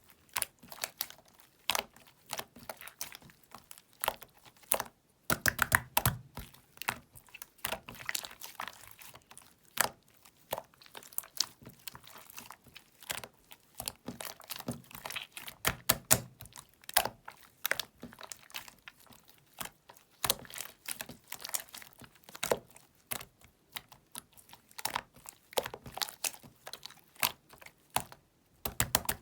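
Toy slime being pressed, poked and stretched by hand, giving irregular sticky clicks, pops and crackles.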